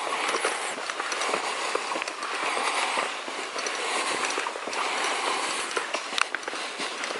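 Footsteps crunching along a forest trail: a steady rough noise that swells and fades about once a second, with scattered sharp clicks.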